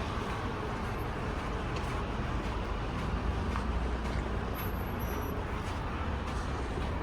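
Steady outdoor city ambience on a snowy street: a continuous low rumble with an even hiss over it, typical of road traffic.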